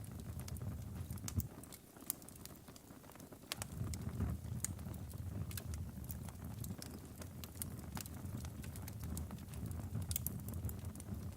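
Wood logs burning in a fireplace: a low, steady rush of flame with frequent sharp crackles and pops. The low rush drops away for a couple of seconds about two seconds in.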